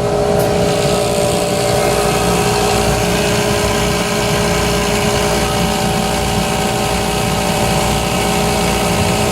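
Workshop air compressor running steadily, its electric motor and pump giving a constant hum with a low rumble underneath.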